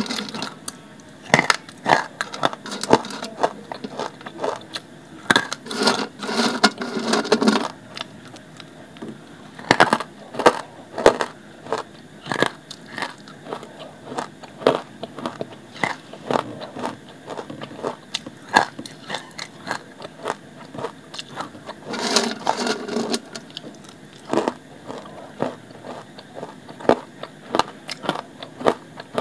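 Dry clay chunks bitten and chewed close to the microphone: a fast, irregular run of sharp crunches and crackles, with heavier spells of chewing about six seconds in and again about twenty-two seconds in.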